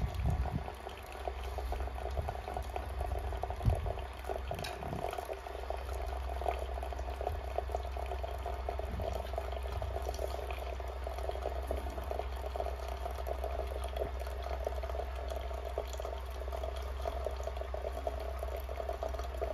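Hot water running from a samovar's tap in a thin steady stream into the strainer of a glass teapot, with a light knock about four seconds in.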